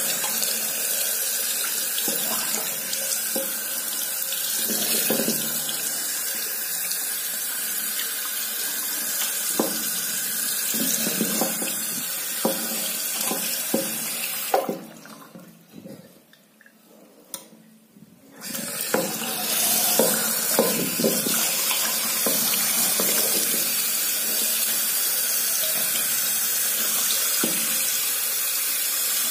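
Tap water running into a sink while a turtle is rinsed by hand, with small splashes and knocks of the shell. The running water stops for about four seconds past the middle, then starts again.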